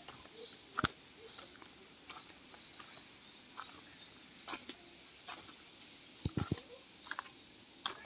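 Birds chirping and calling faintly, with a sharp knock about a second in and two quick knocks about six seconds in.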